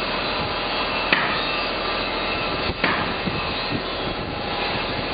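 Pneumatic nailer firing twice into plywood sheathing, two sharp shots about a second and a half apart, over a steady machine drone.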